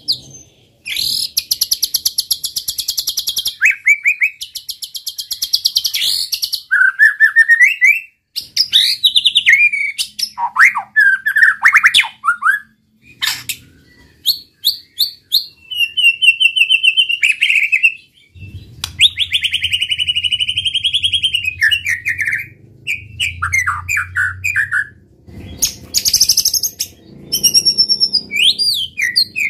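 White-rumped shama singing a long, loud, varied song. It opens with two long rapid trills, then moves into whistled phrases that slide up and down in pitch and quick chattering series, with short pauses between phrases. A low hum sits under the song in the second half.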